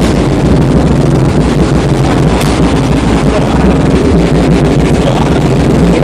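Very loud bass-heavy music from a car audio system's subwoofers, the low notes dominating and distorting.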